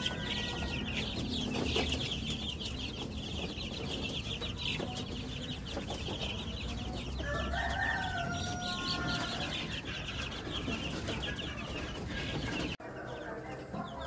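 A brood of two-week-old KUB chicks peeping, many rapid high-pitched peeps overlapping without a break. A lower, longer call rises over them around the middle. Near the end the sound drops off suddenly to quieter peeping.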